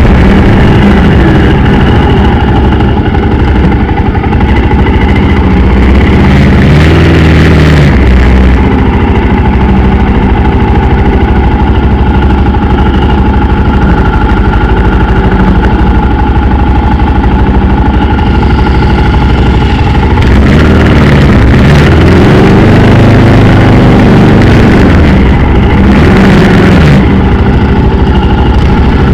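Motorcycle engine running loud and steady, its pitch rising and falling as the throttle is opened and eased off about a third of the way in and again past the middle.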